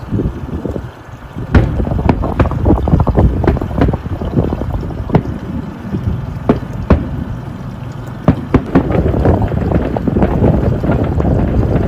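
Fireworks bursting overhead in a rapid, irregular run of sharp bangs, over a steady rumble of wind buffeting the microphone on the open boat.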